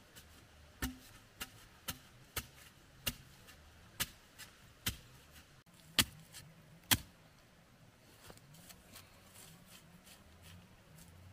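About ten sharp knocks at uneven intervals, roughly one or two a second, stopping about seven seconds in; the last two are the loudest.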